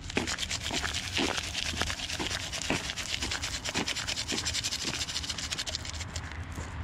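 Salt being thrown by hand from a scoop onto an icy walkway: a dense spray of tiny clicks as the grains land, easing off about six seconds in, with footsteps among it.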